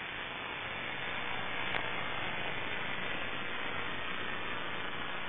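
Steady static hiss from an analog FPV video link's audio channel, with no motor tone standing out.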